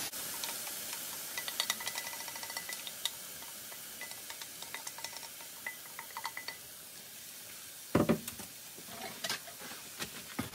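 Vegan mince frying in a hot pan with a steady sizzle as a blended onion, garlic and pepper paste is poured in, with clusters of small crackles and clicks. A couple of knocks near the end are the loudest sounds.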